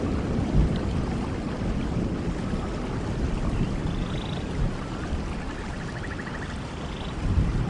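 Steady rain falling in a forest, with a deep rumbling undertone. A few faint animal calls come through it in the second half, one of them a short buzzy trill.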